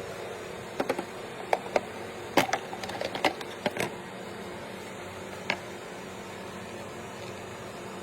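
A steady mechanical hum, with a quick run of sharp clicks and taps in the first half and a single click a little past halfway.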